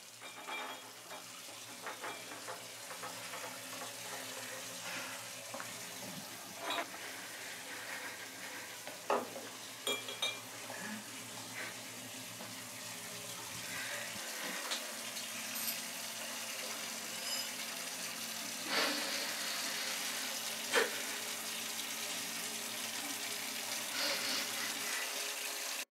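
A few scattered sharp clinks and taps, like glass or crockery being handled, over a steady low hum and a faint hiss.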